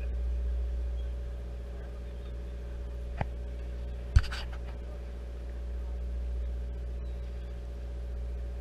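Steady low hum of a sportfishing boat's engine, with a sharp click about three seconds in and a louder knock about a second later.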